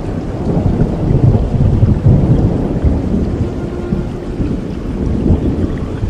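Thunder rumbling low and long through steady rain, loudest about one to two seconds in, then easing off.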